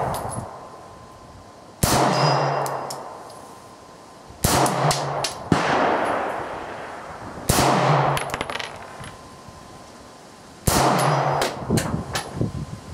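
Boberg XR9-S 9mm compact pistol being fired: five sharp shots one to three seconds apart, each followed by a long echoing tail under a metal shooting-shed roof.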